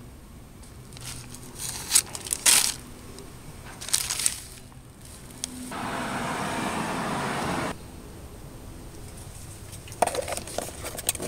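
Clear plastic parts bag crinkling as it is handled, with several sharp crackles in the first few seconds and a steady rustle for about two seconds midway. Near the end, a quick run of small clicks.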